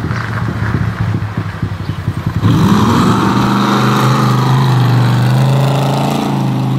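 A Mazda Miata's engine runs at low speed with a pulsing note. About two and a half seconds in it gives way to a louder engine on a lifted pickup, which revs up briefly and then runs at a steady pitch.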